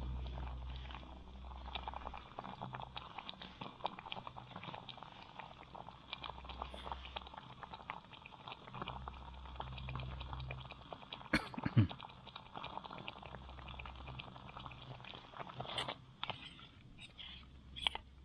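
Thick butter chicken sauce simmering in a small pot on a canister gas stove, bubbling and popping steadily. One brief louder sound about halfway through, and a spoon clicking against the pot near the end as the food is stirred.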